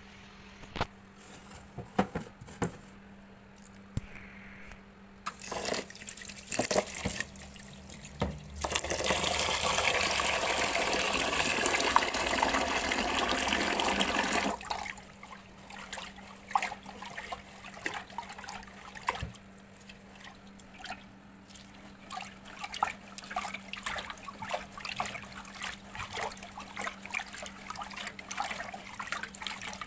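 Water tap running into a pot of basmati rice in a steel sink for about six seconds, starting about 9 s in and cutting off. Before and after it, small splashes and drips as a hand works the rice in the water to wash it.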